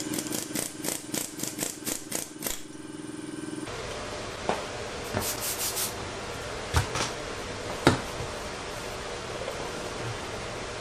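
Power impact tool running on a bearing puller's screw to pull a differential carrier bearing: a steady motor whine with sharp clicks about four a second, stopping suddenly a little over three seconds in. After that, a few light knocks of metal parts being handled.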